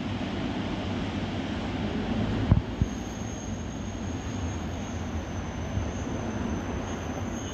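Historic passenger train rolling into a station: a steady low rumble of the carriages with two knocks about two and a half seconds in. A thin, high, steady squeal sets in soon after as the train slows.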